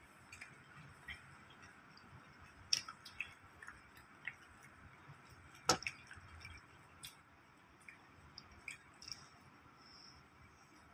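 A person chewing a mouthful of rice, fried fish and tomato close to the microphone: faint, wet, squishy mouth sounds with scattered sharp clicks, the loudest about halfway through.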